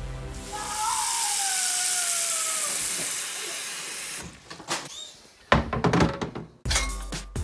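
Kitchen tap water running hard into a metal pot: a steady hiss with a slowly falling tone, shut off about four seconds in. A few knocks and clatters follow, then music comes in near the end.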